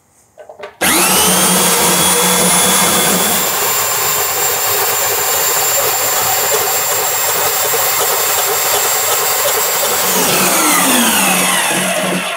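REMS Cento electric pipe cutter running with a REMS REC 28-108 pipe end deburring cone, driven by its cutter wheel, removing the inner burr from a metal pipe held against the spinning cone. It starts suddenly about a second in and rises quickly to speed. It runs steadily with a metallic whirring scrape, then falls in pitch as it winds down near the end.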